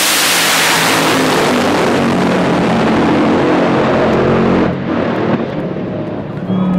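Two Top Fuel dragsters at full throttle just after launch: a deafening, crackling engine roar that fades as they pull away down the track. It drops away suddenly about five seconds in as they reach the top end.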